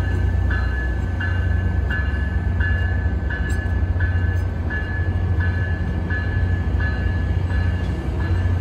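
Caltrain electric double-deck passenger train rolling past at low speed, with a steady deep rumble from its wheels on the rails. A bell rings evenly over it, about three strikes every two seconds.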